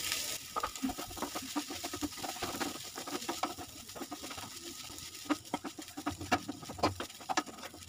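Wooden spatula scraping and knocking against a non-stick frying pan while stirring a thick potato-and-carrot mash: a string of irregular clicks and scrapes.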